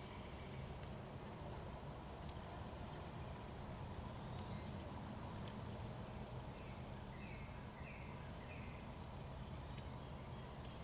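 An insect's steady high-pitched buzzing trill, which sets in about a second and a half in, holds for several seconds, then carries on more faintly before stopping. Partway through, a bird gives four short falling notes.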